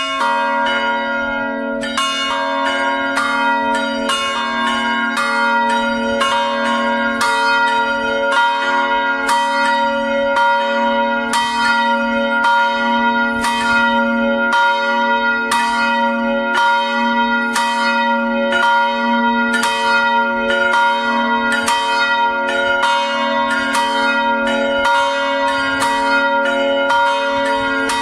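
Full peal of three swinging bronze church bells from the Felczyński foundry (about 150, 260 and 420 kg, struck notes F-sharp, C-sharp and B-flat), their clappers striking in a steady, overlapping jumble with each stroke ringing on. The ringing starts suddenly at full strength.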